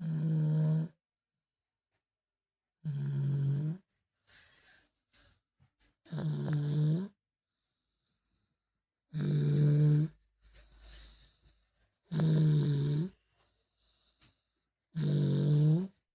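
A two-year-old child snoring: six loud snores, each about a second long and about three seconds apart, with fainter breathy sounds between them. The uploader flags snoring like this as not normal for a child that age.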